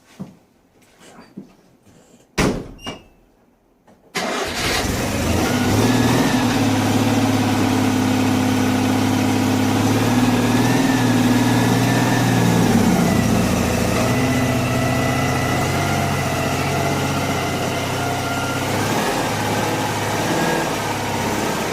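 A few knocks, then about four seconds in a Citroën Acadiane's air-cooled 602 cc flat-twin engine comes in suddenly and runs steadily, its pitch wavering a little, freshly serviced with a new fuel pump, filter and ignition parts.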